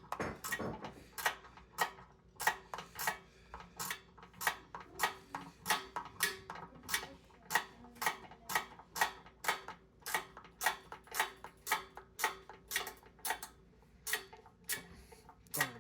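Ratcheting wrench clicking in a steady rhythm, about two to three clicks a second, as a bolt is tightened, with a short pause near the end.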